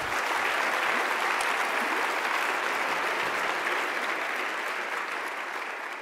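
Audience applauding, a steady clapping that slowly begins to die down near the end.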